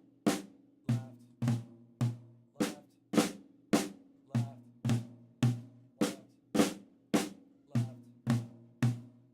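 Drum kit played slowly and evenly, about two strokes a second, moving between two drums: the Swiss Army Triplet flam rudiment (a flam, then a right and a left tap), led with the left hand. Each stroke rings on after the hit.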